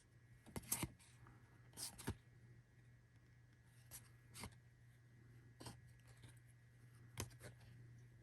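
Faint flicks and rustles of Topps baseball cards being handled and flipped through, a handful of short, soft sounds spread out, over a faint steady hum.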